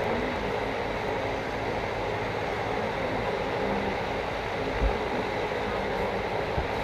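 Steady rushing hiss of a pot of thick gravy cooking on a gas stove while a steel spoon stirs it, with a soft knock about five seconds in.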